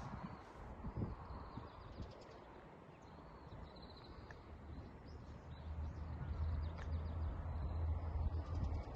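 Outdoor ambience with scattered faint bird chirps. A low rumble builds from about halfway through and grows louder toward the end.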